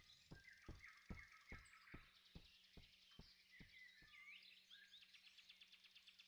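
Faint forest ambience: small birds chirping, with a run of soft ticks about two or three a second that fade away over the first four seconds.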